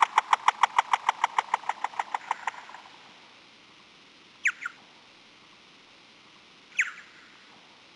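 Bat echolocation calls made audible by a bat detector: a fast train of short chirps, about ten a second, that fades out about three seconds in. A close pair of falling chirps follows about halfway through, then one more near the end.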